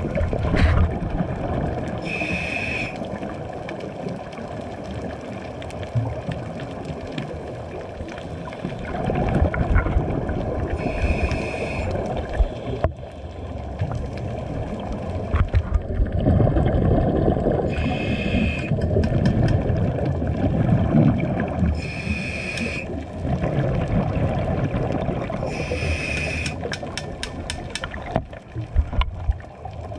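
Scuba diver's regulator breathing heard underwater: five short, hissing inhales with a reedy tone, between long, rumbling gurgles of exhaled bubbles. A few quick clicks come near the end.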